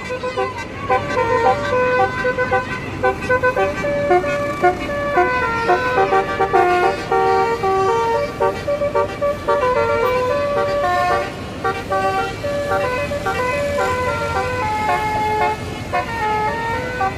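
Indonesian bus 'telolet' multi-trumpet air horn playing a tune of short stepped notes, several horns sounding together in chords, with only brief breaks between phrases.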